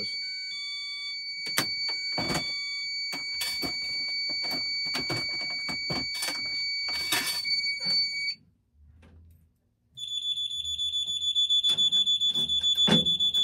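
Fire alarm sounders going off: a steady, high electronic tone with clicks and knocks over it cuts off after about eight seconds, and after a short gap a higher, rapidly pulsing alarm tone starts and runs on, still pretty loud.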